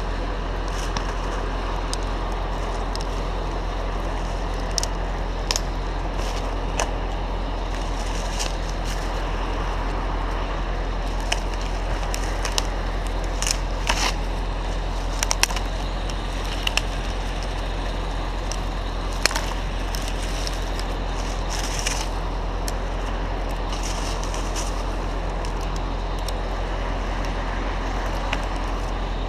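A machine engine running steadily at a low pitch, with scattered sharp clicks and crackles throughout, thickest in the middle.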